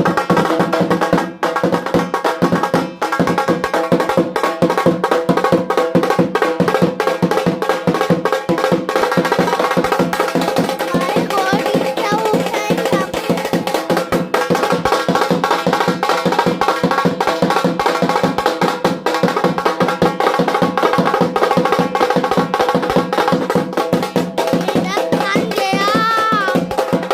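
Music with fast, dense percussion and steady held tones, with a short wavering vocal line near the end.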